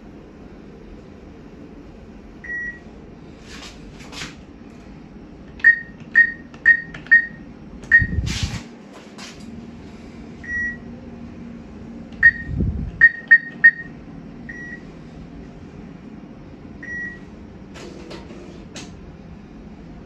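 Bank ATM beeping at each button press: about a dozen short, high beeps, including a quick run of four and later a run of three, over a steady low machine hum with a few soft clicks.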